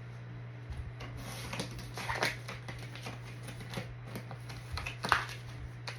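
Light rustling and scattered small clicks of craft materials being handled and cut, with a sharper click or snip about two seconds in and again about five seconds in, over a steady low hum.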